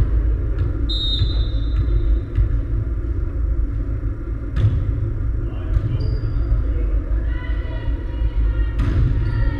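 Volleyball rally in a sports hall: sharp smacks of hands on the ball, one about four and a half seconds in, another a second later, and a hard one near the end as the attack is hit at the net, with players calling out just before it. A steady low rumble underlies it all, and a short high-pitched tone sounds about a second in.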